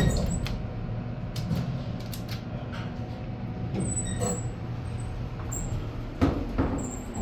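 Thyssenkrupp Oildraulic hydraulic elevator running, heard from inside the cab: a steady low hum with a few light clicks, and a louder knock about six seconds in.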